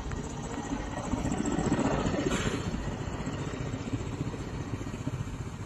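Steady outdoor rumble of road traffic with wind noise on a phone microphone, with a brief change about two seconds in where the footage cuts.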